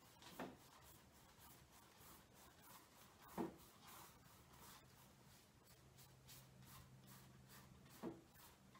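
Faint brushing of a paintbrush working acrylic paint across a stretched canvas, stroke after stroke, with three short louder sounds about half a second in, near the middle and near the end. A faint low hum comes in about halfway through.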